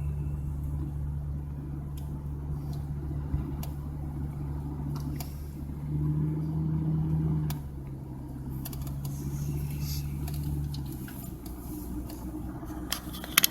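Car engine and road noise heard from inside the cabin while driving: a steady low hum that rises in pitch and gets louder for about a second and a half around the middle, then settles back, with a few faint clicks near the end.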